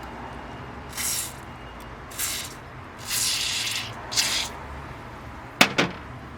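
Aerosol spray can giving four short hissing sprays, one a little longer than the others, followed by two sharp clicks close together near the end.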